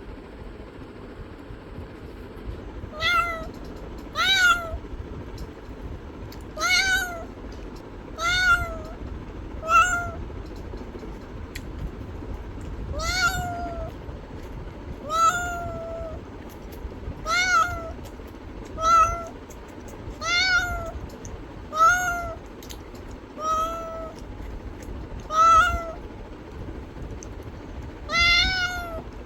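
A cat meowing over and over: about fourteen short meows, one every second or two, each rising then falling in pitch. A steady low rumble runs underneath.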